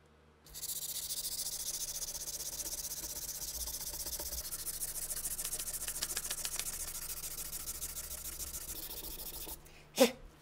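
Fine-grit sandpaper (P240–320) rubbed by hand over a wooden RPG-7 heat-shield sleeve: a steady gritty hiss of fast back-and-forth strokes. The sanding stops near the end, followed by a single sharp knock as the wooden piece is set down on the bench.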